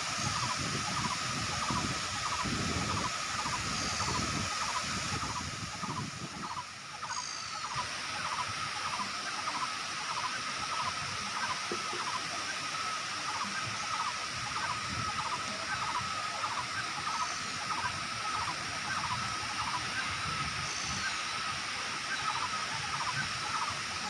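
Kuang Si waterfall's tiered cascades pouring, a steady rush of falling water. Over it, a short chirp repeats about twice a second throughout, with a few higher bird calls.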